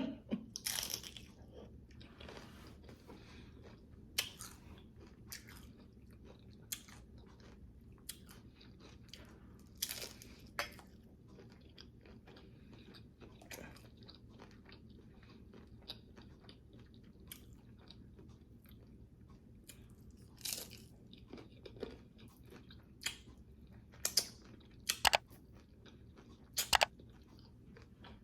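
Close-up chewing and biting of a crisp, oven-baked low-carb taco shell: irregular short crunches and crackles with softer chewing between, a cluster of louder crunches in the last several seconds.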